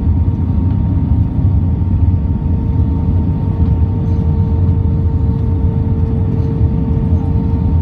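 Steady low rumble of an airliner heard from inside the cabin, with a steady mid-pitched tone and a fainter higher one over it.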